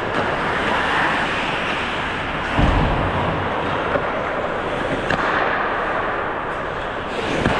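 Ice hockey play on a rink: a steady noisy wash of skating and play, with scattered sharp clicks and one heavy low thud a little under three seconds in.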